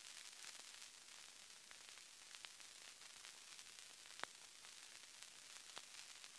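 Near silence: a steady hiss with scattered faint clicks, one sharper click about four seconds in.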